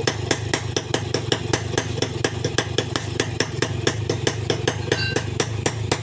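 A small engine idling with a hum and a sharp, even ticking about four to five times a second. A brief pitched tone sounds about five seconds in.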